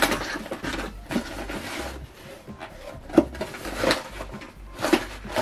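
Small cardboard parcel being opened by hand: flaps pulled and the cardboard rustling and scraping, with several sharp knocks, the loudest about three seconds in.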